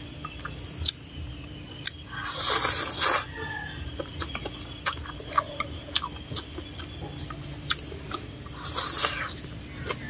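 A person eating instant noodles with chopsticks: small wet chewing clicks throughout, and two longer noisy slurps of noodles, about two and a half seconds in and near the end.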